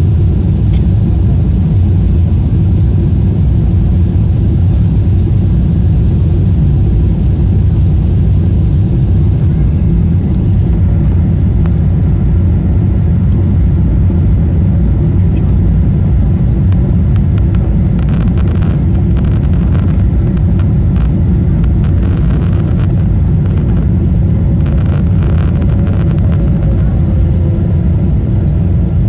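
Steady low roar in the cabin of a Boeing 777-300ER airliner, with light rattling in the second half.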